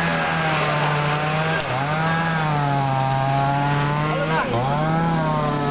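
Two-stroke chainsaw running at high revs while cutting up a fallen tree. Its note dips and climbs back up twice, about three seconds apart.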